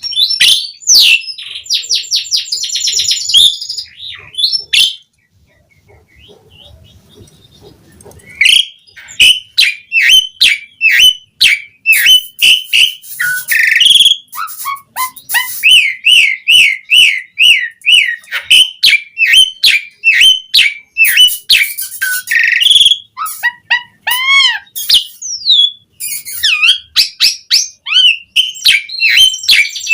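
Javan pied starling (jalak suren) singing in full song: long, fast runs of varied whistles, chattering notes and rising-and-falling sweeps, with a quiet pause of a few seconds about five seconds in.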